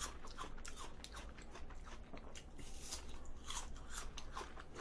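Close-miked biting and chewing of a fresh apple slice: irregular crisp, wet crunches throughout.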